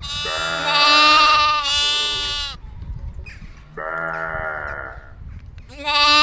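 Sheep bleating: four wavering bleats, two back to back at the start, one near the middle and one near the end.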